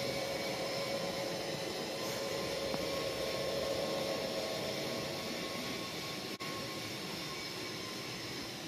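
00 gauge model trains running on a layout: a steady whirring hum with a faint whine from the electric motors and wheels on the track.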